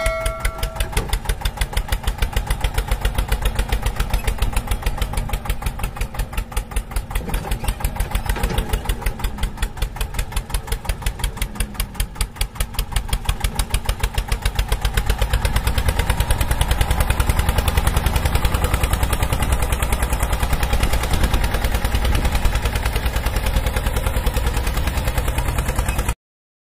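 Small engine of a miniature ride-on tractor running with a rapid, even putter. It gets louder about halfway through and cuts off suddenly near the end.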